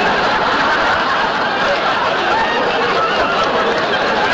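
Studio audience laughing, one long, loud, steady wave of laughter.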